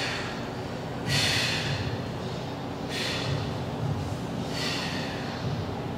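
A man breathing hard in sharp, hissing breaths, three of them about two seconds apart, as he braces into bodybuilding poses, over a steady low hum.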